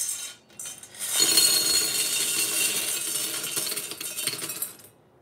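Small 3D-printed PLA plastic vegetable pieces poured out of a stainless steel saucepan into a bowl, clattering and rattling against the steel and the bowl. The clatter starts about a second in and runs steadily for about four seconds.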